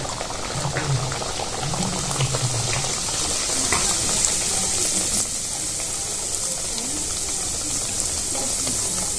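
Stuffed moong dal kachuri deep-frying in hot refined oil in a steel kadai: a steady, even sizzle with scattered small crackles.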